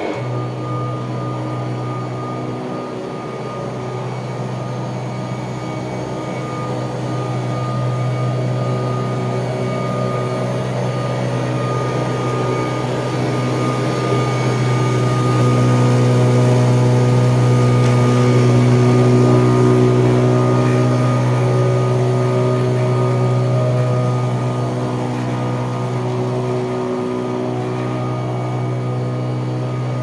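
1979 Kirby Tradition upright vacuum cleaner running on carpet, a steady motor hum with a few steady higher tones. It grows louder as it is pushed up close, loudest about halfway through, then fades as it is pushed away.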